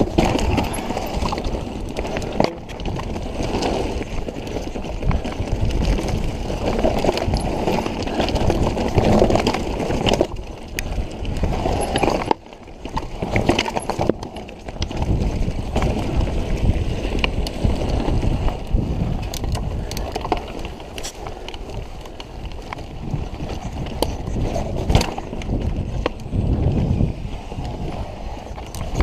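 Mountain bike rolling fast over rocky dirt singletrack: tyres crunching on loose stones and the bike rattling, with many sharp knocks as it hits rocks. There is a short lull about twelve seconds in.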